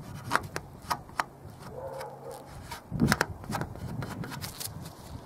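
Filling knife pressing and scraping two-part wood filler into a damaged wooden threshold: soft rubbing scrapes with a few sharp clicks, the loudest about three seconds in.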